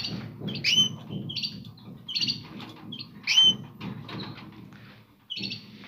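Canaries in a breeding cage giving short, sharp chirps, each dropping in pitch, several in quick succession and another near the end, over a low, irregular rustling.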